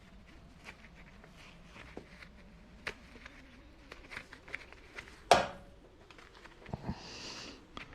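Handling copper wire and a wire-stripping tool: scattered small clicks and knocks, one sharp loud knock with a short ring about five seconds in, and a brief hiss-like noise near the end.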